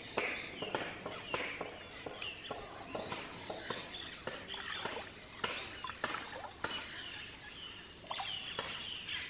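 Wooden canoe paddles dipping and knocking against the hull, a short sharp stroke sound about every half second, with birds calling over the rainforest background.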